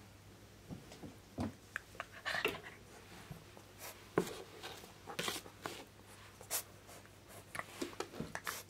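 Kai Ken puppy rolling and wriggling on its back on a rug and wooden floor: irregular rustles and scrapes of fur and paws against the floor with small knocks, with a longer stretch of rubbing a couple of seconds in.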